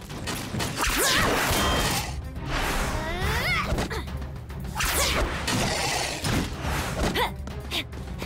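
Cartoon action sound effects: several fast swooshes and a few hits over steady background music.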